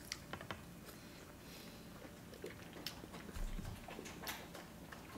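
Faint mouth sounds of people eating fufu with pondu greens by hand: scattered soft, wet clicks and smacks.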